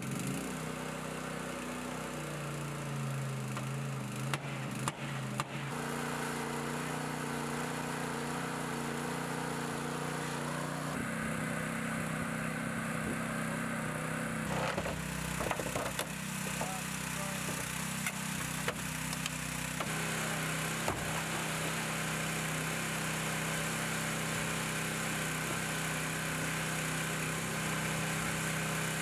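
Small gasoline engine of a hydraulic rescue-tool power unit running steadily, its pitch stepping up and down several times as the hydraulic cutters take load. Sharp cracks and snaps come about four to five seconds in and again about fifteen seconds in as the tools work on the car body.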